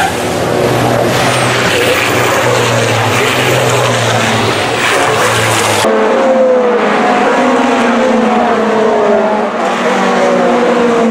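A MAN race truck's diesel engine running hard, a steady low drone under heavy noise. About six seconds in it gives way abruptly to several race-car engines whose notes fall in pitch.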